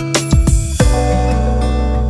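Background music: an instrumental track with plucked guitar notes.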